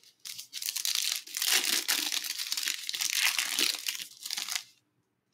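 Foil wrapper of a Panini Prizm football card pack crinkling and tearing as it is ripped open by hand. There is continuous crackle that starts about a third of a second in and stops shortly before the end.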